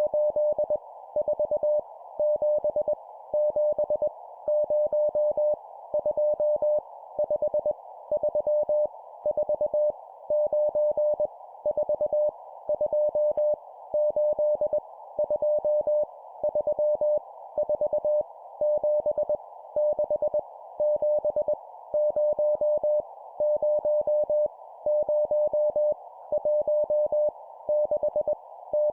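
Morse code (CW) sent at 20 words per minute: a single steady tone of about 600 Hz keyed into short and long elements, spelling out random numbers one character at a time with brief pauses between characters, over a steady hiss.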